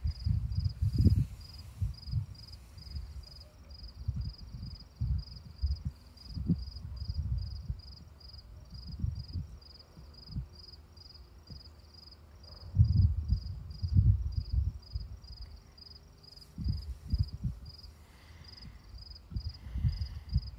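A cricket chirping steadily and high-pitched, about two and a half chirps a second, with uneven low rumbles on the microphone that are louder than the chirping.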